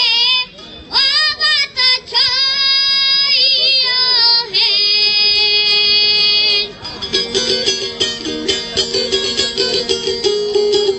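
A young boy singing over backing music, holding long notes with a strong vibrato. About seven seconds in the voice stops and the instrumental accompaniment carries on alone with a quick, plucked-sounding rhythm.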